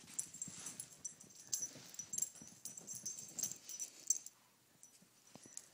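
Small dog playing with a plush Lamb Chop toy, making short irregular dog sounds amid scattered clicks and rustles.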